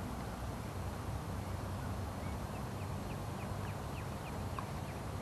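A distant bird calls a quick string of about a dozen short, faint chirping notes over a steady low outdoor rumble.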